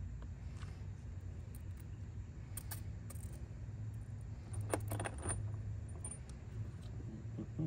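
Small stainless steel screws and washers clinking together as they are handled and paired up, with a few light metallic clicks, most of them clustered around the middle, over a steady low background rumble.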